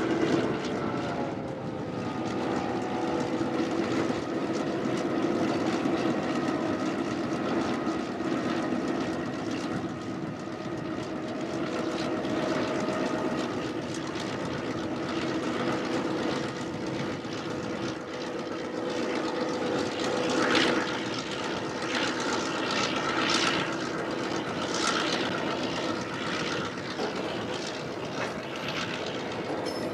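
T class diesel locomotive's engine droning steadily as it shunts a rake of box wagons, its pitch easing down slightly in the first couple of seconds. Several brief higher-pitched sounds come in about two-thirds of the way through.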